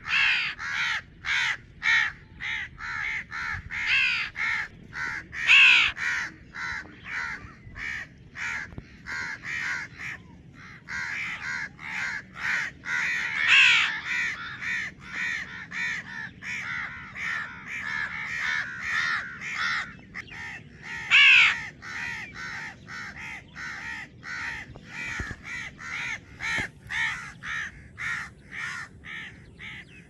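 House crows cawing in a rapid, overlapping series: a fledgling calling from the ground among the steady caws of the adult crows, with a few louder caws standing out.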